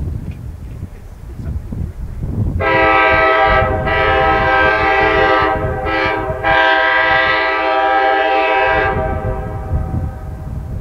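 Locomotive air horn sounding a chord in the grade-crossing pattern: long, long, short, long. It is the standard warning as the train nears a crossing. Beneath it runs a low rumble of the approaching train and wind.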